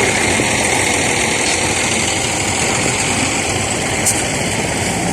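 Motor vehicle engine running steadily, with a brief click about four seconds in.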